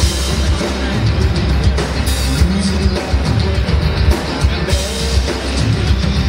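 Live heavy metal played on amplified cellos and a drum kit, with a male lead singer. The drums beat steadily under hard-bowed cellos and singing.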